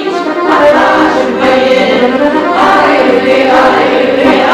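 A choir singing, many voices holding long notes together.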